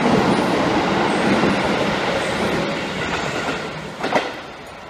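Electric commuter train running along a station platform, its running noise fading away. A short sharp knock comes about four seconds in, then a quieter steady hum.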